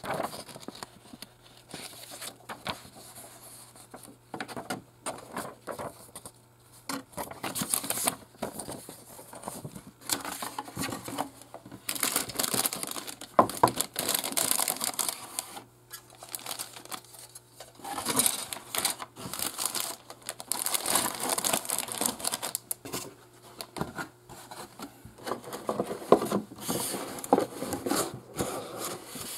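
Clear plastic bags of model kit parts crinkling and rustling as they are handled, with paper rustling and irregular light clicks and taps.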